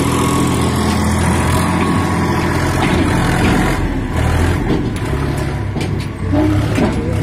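Preet 955 tractor's diesel engine working hard under load, pulling a loaded trailer up a mound of loose soil, with a few clatters about four to five seconds in.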